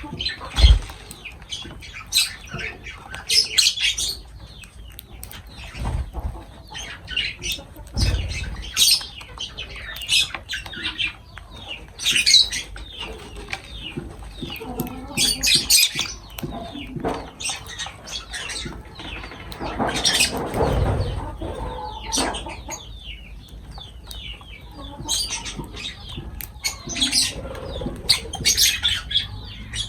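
Lovebirds chirping in many short, sharp high calls scattered throughout, with fluttering wings and a few dull thumps, the loudest about a minute third of the way and two-thirds in.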